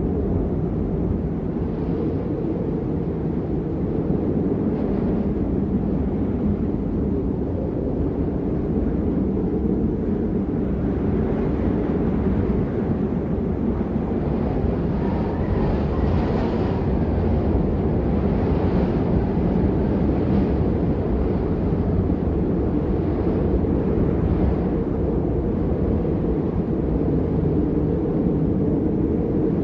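A steady, loud low rumble of noise with no clear pitch, holding its level throughout, with faint rushing swells higher up about halfway through.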